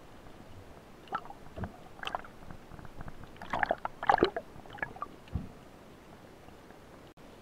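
Irregular underwater knocks and clicks from a spearfisher handling a speargun and speared fish, densest three to four seconds in.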